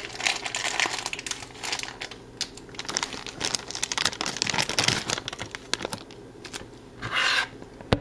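Clear plastic bag of corn starch crinkling and rustling as it is handled, with irregular crackles and a louder rustle about seven seconds in.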